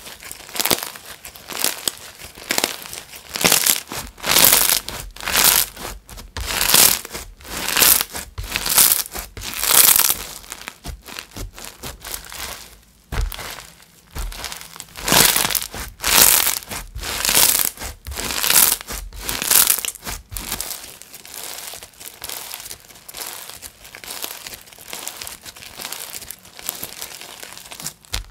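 Crunchy pink slime full of small crunchy bits being stretched, pulled apart and squeezed by hand, giving repeated bursts of crackling and crunching about once a second. The bursts grow fainter in the last third as the slime is gathered up and pressed.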